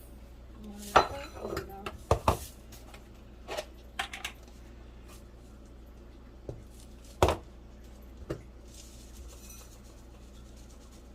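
Kitchen dishes and utensils knocking and clinking on the counter while breading ingredients are measured into bowls: a quick run of sharp knocks in the first few seconds, then three more spaced out.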